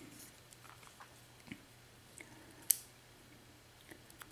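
Faint, scattered small clicks and taps of tiny metal lock parts being handled, as the pins of a disassembled Schlage mortise cylinder are picked out and examined; the sharpest click comes about two and a half seconds in.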